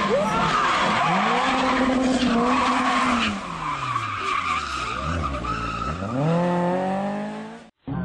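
Rally car engines revving hard, with tyres skidding on tarmac as a car slides sideways and spins in a tight bend. The engine note rises about a second in, holds, then falls away, and a second rising rev comes near the end before the sound cuts off suddenly.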